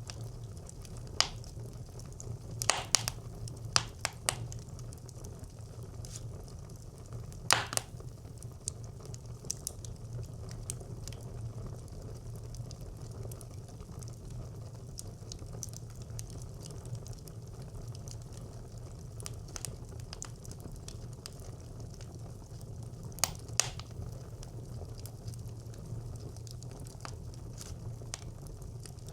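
Fire burning in a traditional Nordic brick clay stove: a steady low rumble under scattered sharp crackles and pops. The crackles come in a cluster over the first eight seconds, then a pair about three-quarters of the way through.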